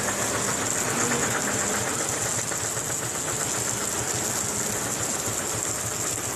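Heavy tanker truck's diesel engine running steadily, with a fast even low pulse and a steady high hiss over it.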